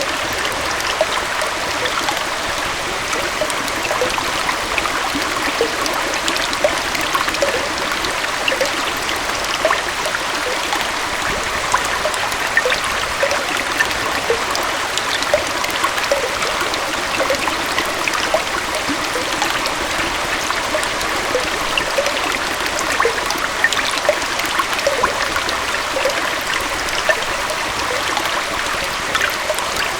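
Small forest waterfall and stream flowing steadily, water splashing and trickling with many small bright splashes over an even rushing hiss.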